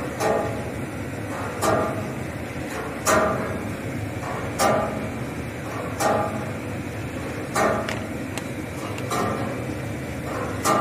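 Pyrolysis plant machinery running with a steady hum, and a sharp metallic knock that repeats evenly about every one and a half seconds.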